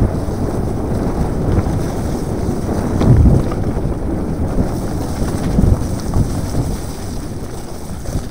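Wind rushing over an action camera's microphone as a mountain bike rolls down a muddy trail, with heavier jolts about three seconds in and again near six seconds.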